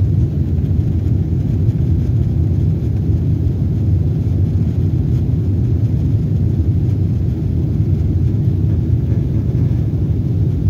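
Steady low rumble of an airliner heard from inside the passenger cabin in flight: engine and airflow noise.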